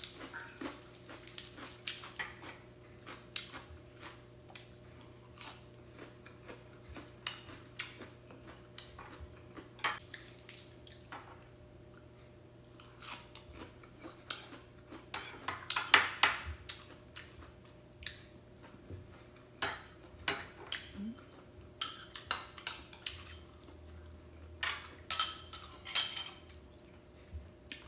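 Eating sounds: chewing, and a metal spoon clinking and scraping against a ceramic bowl at irregular moments.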